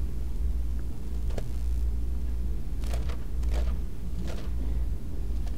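Bible pages being turned at a pulpit: a few short papery rustles, one about a second and a half in and a cluster of three or four around three to four and a half seconds in, over a steady low rumble.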